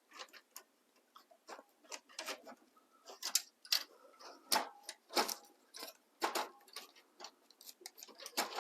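Irregular plastic and metal clicks and knocks, with a few brief scrapes, as an HP LaserJet 2055's fuser assembly is worked by hand into its slot in the printer.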